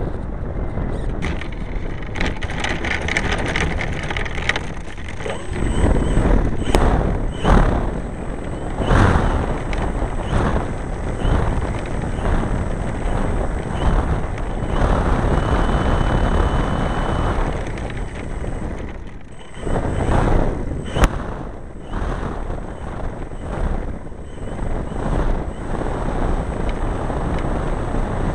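Onboard sound of a large RC model airplane rolling on a rough dirt strip: its engine and propeller running under wind noise on the microphone, with a number of short knocks and rattles as the airframe bumps over the ground.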